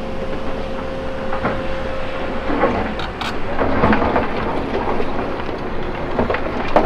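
CAT 312E L excavator's diesel engine running steadily while its bucket works rocks, with a steady whine that stops about two seconds in, a clatter of rocks knocking together around the middle and a sharp knock near the end.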